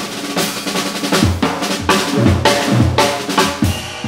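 Jazz drum kit played in a solo break: irregular snare and tom strokes with cymbal wash and a few bass drum hits, and little or no bass or piano under them.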